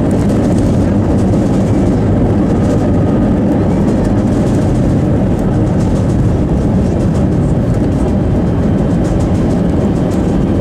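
Loud, steady rumble inside the cabin of an Airbus A320 rolling down the runway at speed just after touchdown: engine and wheel noise from the landing rollout.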